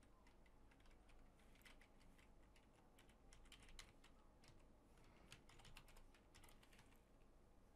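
Faint computer keyboard typing: slow, uneven keystrokes as a word is typed.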